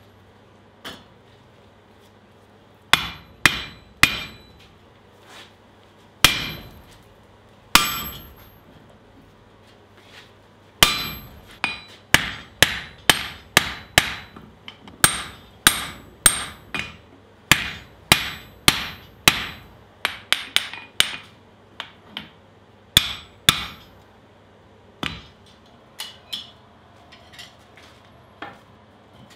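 Hand hammer striking hot steel on an anvil while the eye of a pickaxe head is forged, each blow with a short, high metallic ring. A few scattered blows come first, then a steady run of about one to two blows a second that thins out near the end.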